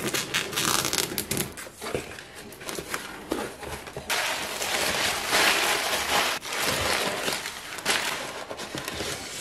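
Packing tape on a cardboard parcel cut with scissors and the box flaps pulled open, with sharp crackles and snips, then crumpled kraft packing paper rustling loudly as it is pulled out of the box from about four seconds in, followed by more crackling handling of paper and cardboard.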